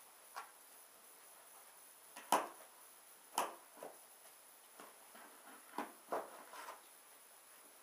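Cardboard boxes being handled: a doll's printed window box being lifted out of a cardboard shipping carton, with scattered soft knocks and taps. The sharpest knocks come about two and a half and three and a half seconds in.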